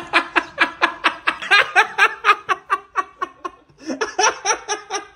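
A man laughing hard in quick rhythmic bursts, about four to five a second. He breaks off briefly past three seconds in, then starts laughing again.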